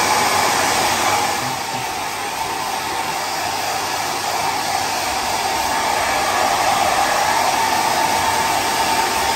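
Handheld hair dryer running steadily, blowing warm air over a baby monkey's wet fur; it goes a little quieter for a moment about two seconds in.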